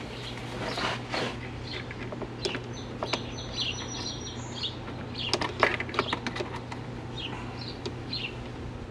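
Birds chirping in short calls, with scattered sharp clicks and knocks and a steady low hum underneath.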